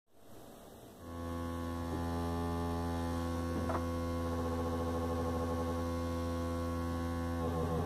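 Modular synthesizer oscillator sounding a steady low buzzing drone with many overtones, starting about a second in and holding one pitch; near the end the tone starts to warble as frequency modulation comes in.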